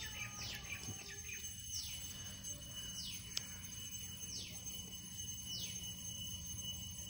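A bird calling repeatedly: a high whistled note that sweeps quickly downward, about five times, each a little over a second apart.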